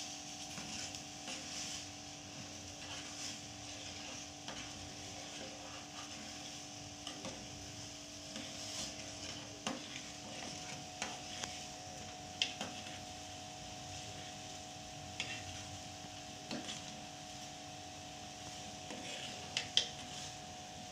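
A metal utensil stirring noodle soup in an aluminium saucepan, with scattered clinks and scrapes against the pot, the loudest near the end. A steady hiss and low hum run underneath.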